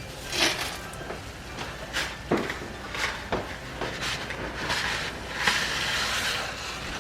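Dry thin spaghetti being snapped in half by hand: a run of separate sharp cracks, with a longer rustling, crackling stretch about five seconds in.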